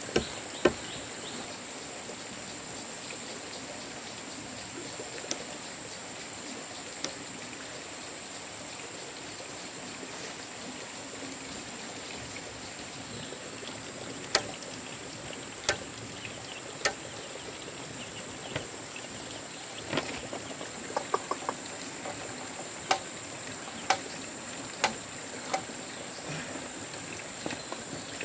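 Scattered sharp taps and clicks, about a dozen at irregular intervals, several bunched in the second half, as a knife marks measurements across squared wooden beams. They sit over a steady high-pitched background buzz.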